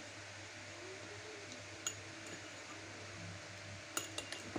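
A steel spoon clinking against a glass tumbler as it dips into pani puri water: one clink about two seconds in and a quick run of three or four clinks near the end, over a steady background hiss.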